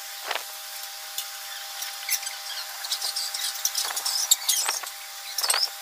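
Short scrapes and taps of a ceramic wall tile being pressed and worked into wet cement mortar by hand, a few times, over a steady faint hum and scattered high squeaks.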